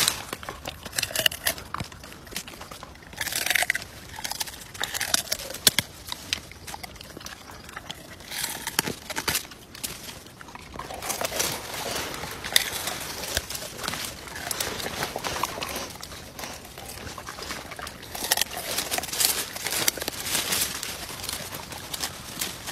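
A dog chewing and crunching hard raw food, irregular crackly crunches coming in bouts with short pauses.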